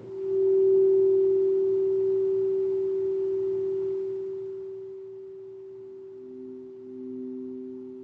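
Sound-bath instrument ringing a pure, single-pitched tone that swells sharply at the start and slowly fades; a second, lower tone joins about six seconds in.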